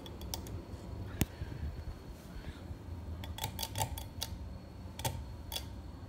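Emerson 1895 ceiling fan running with a steady hum from its motor, which has noisy bearings, while its pull-chain speed switch is clicked: one sharp click about a second in, then quick runs of clicks and chain rattle between about three and a half and four seconds in and again near five seconds.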